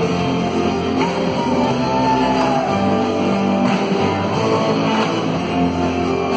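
Band music led by guitar, with a lead line that bends up and down in pitch about a second in.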